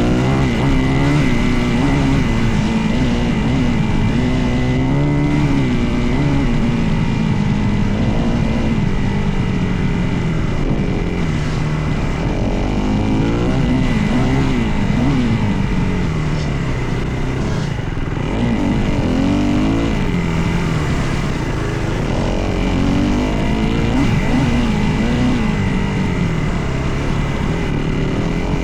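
Dirt bike engine running while ridden, its revs rising and falling again and again as the throttle is opened and closed.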